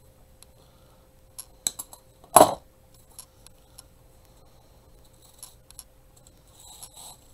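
Small clicks and taps of artificial flower stems and craft tools being handled on a cutting mat, with one much louder sharp knock about two and a half seconds in, over a faint steady hum.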